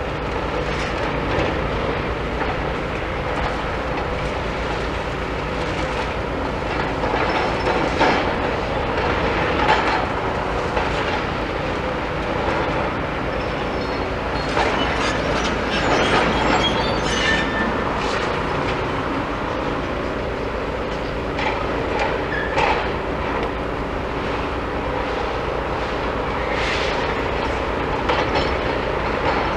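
Demolition machinery running steadily, with scattered metallic clanks, squeals and crunching rubble as the building is pulled down, busiest in the middle of the stretch.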